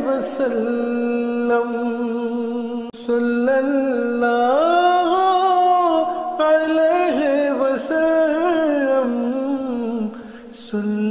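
Wordless male vocal humming in layered harmony over a steady low held drone, the melodic interlude of an Urdu devotional nazm. The melody glides up and down, with brief dips in level about three seconds in and near the end.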